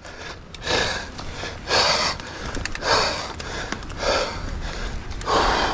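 A mountain biker breathing hard, winded from exertion, with a heavy breath about once a second.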